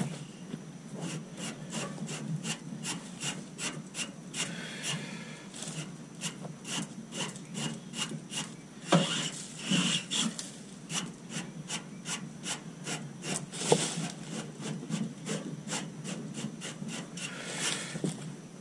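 A hand brush scraping in quick repeated strokes across the fins of an Amana air conditioner's outdoor condenser coil, scrubbing off a thick coat of lint and dirt. The clogged coil is the cause of the unit not cooling.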